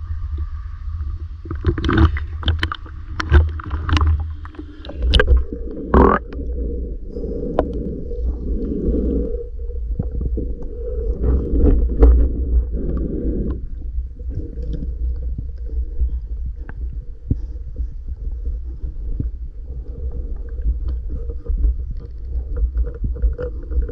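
Muffled underwater sound from a camera submerged in a murky river: a steady low rumble of water moving against the camera housing, with scattered clicks and knocks in the first few seconds.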